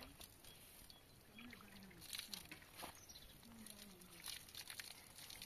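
Near silence, with a few faint scattered clicks and two faint, distant gliding calls or voices.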